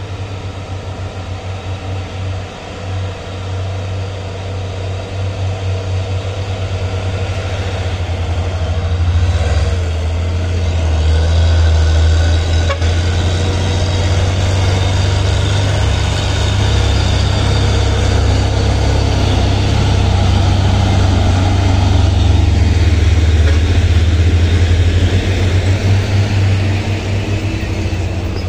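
Heavy diesel truck engines working hard up a steep climb, among them a laden Isuzu dump truck. It is a loud, low, steady drone that grows louder over the first ten or so seconds as the trucks come close, then holds.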